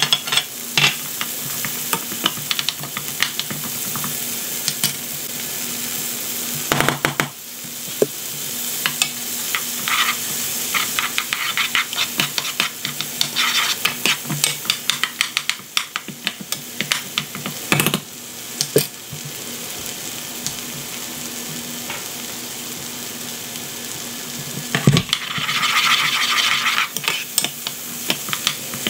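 Butter, onion, garlic and diced carrot sizzling in a pan with a steady hiss, while a spatula stirs and scrapes through them in frequent light clicks. There are a few louder knocks against the pan.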